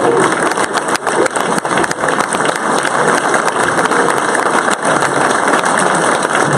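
Large audience applauding and cheering loudly in a standing ovation, a dense steady clatter of many hands clapping with a few cheering voices near the start.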